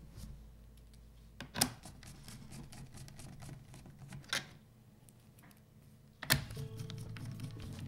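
Sharp clicks and taps of screws and a screwdriver against a laptop's plastic bottom case during reassembly: three distinct clicks, the last the loudest.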